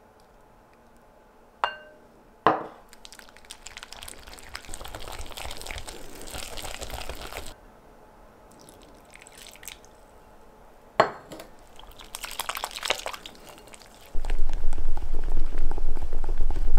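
Butter and powdered sugar being beaten in a glass bowl with a utensil. Two ringing clinks against the glass are heard, with stretches of scraping and stirring between them. Near the end comes a louder, steady stretch of fast mixing with a low rumble.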